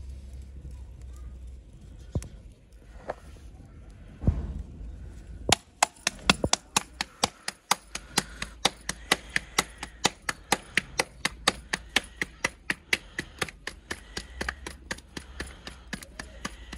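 Roti dough being slapped flat between bare palms: a fast, even patter of sharp claps, about four a second, starting about five seconds in after a single thump.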